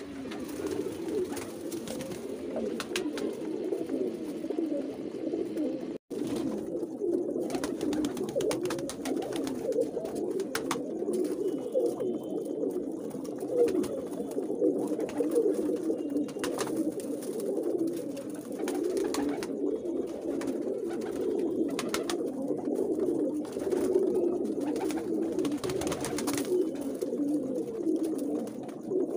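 A loft full of domestic high-flyer pigeons cooing without pause, many birds overlapping into one continuous murmur. Occasional short clicks sound over it, and the sound cuts out for an instant about six seconds in.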